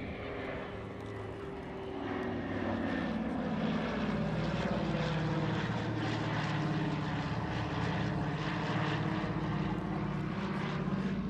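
Douglas C-47 Dakota's twin piston radial engines droning steadily as it flies past in a display. The drone grows louder about two seconds in as the aircraft comes nearer.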